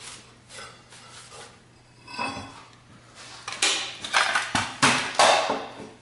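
Clacks and rattles of a drill bit case being handled on a steel table, the bits inside shifting. A few light knocks come first, then a run of louder clattering strikes in the second half.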